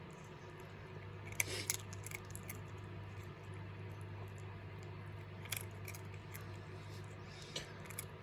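A cat eating a treat from a hand, with a few faint wet clicks and smacks of licking and chewing over a steady low hum.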